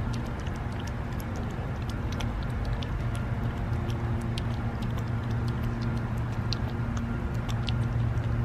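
A cat lapping and chewing wet raw food thinned with water: quick, irregular wet clicks, over a steady low hum.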